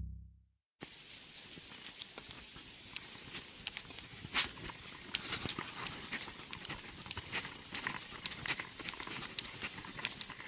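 Intro music fading out, a brief silence, then irregular light clicks and scuffs of footsteps and handheld-camera handling while walking along a paved road, over a faint hiss.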